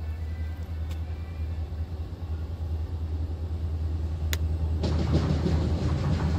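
Approaching diesel-hauled train: the locomotive's low engine rumble grows steadily louder, with a brief sharp sound about four seconds in. Near the end a broader rumble swells up as the train draws close.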